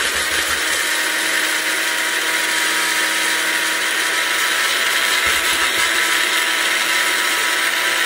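Farberware personal blender running at a steady whine, its blade grinding dry hot Cheetos into crumbs in the pressed-down cup.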